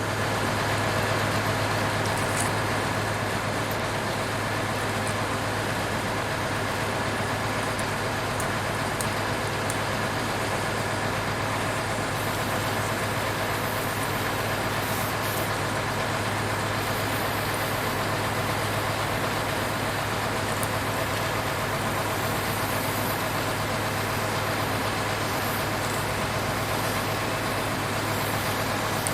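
Steady, unchanging engine drone with a low hum, truck-like.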